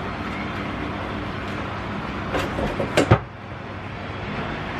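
Bread machine motor running as it kneads dough. About two and a half seconds in come a few knocks and then two sharp clacks, and after them the running sound is quieter.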